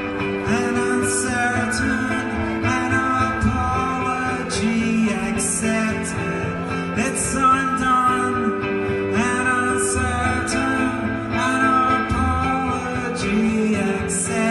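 Live amplified Telecaster-style electric guitar playing a slow, repeating chord pattern, with a man singing softly over it.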